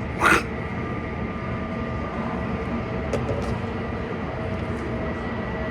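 Airliner jet engines running at low power, a steady rumble with a thin, high whine. A brief loud, sharp sound breaks in just after the start.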